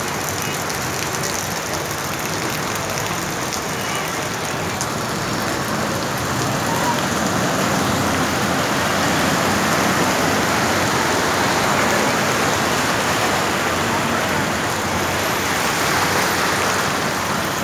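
Heavy rain pouring down on a flooded street: a loud, steady hiss that swells a little in the middle.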